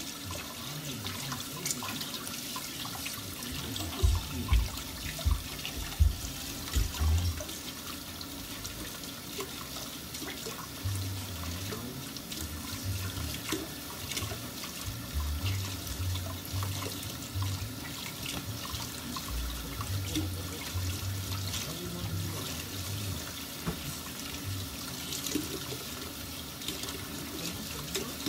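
Tap running into a kitchen sink while hands are washed under it, a steady splashing hiss. A few louder low knocks come about four to seven seconds in, with softer bumps later.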